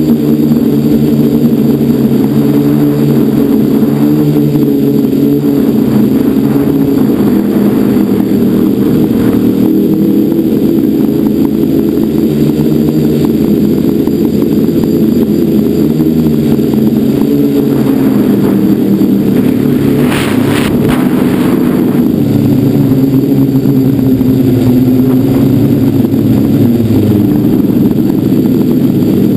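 A quadcopter's electric motors and propellers buzzing close up, heard from a camera on board, the pitch stepping up and down as the throttle changes. About 20 seconds in there is a brief rush of noise.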